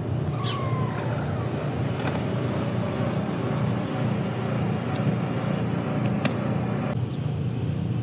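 Steady low rumble of city traffic, with a few short, sharp chips from songbirds, which she takes as a possible warning that a hawk is around.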